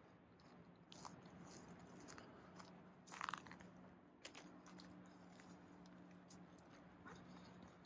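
Faint crunching footsteps on a dirt trail, with scattered sharper clicks and a brief louder sound a little after three seconds.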